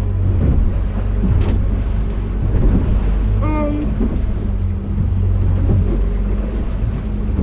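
Boat engine running with a steady low drone, with wind noise on the microphone.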